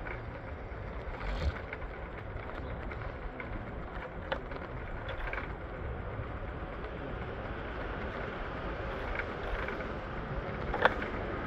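Steady low rumble and noise of a moving vehicle on a ride, broken by a few short sharp clicks or knocks, the loudest near the end.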